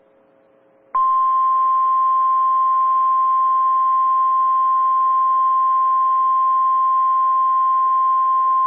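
NOAA Weather Radio 1050 Hz warning alarm tone: one loud, steady, unbroken beep that starts abruptly about a second in, the alert signal that comes before a severe thunderstorm warning is read out.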